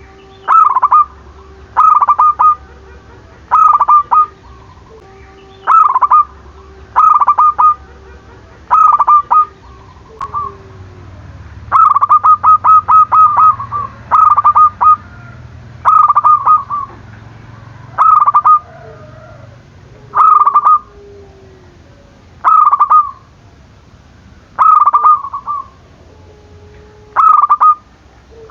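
Zebra dove (perkutut) cooing: short bursts of quick staccato coo notes about every one to two seconds, with a longer rapid run of notes about twelve seconds in. A bird in full call ('gacor'), the kind of call used as a lure to get other zebra doves calling.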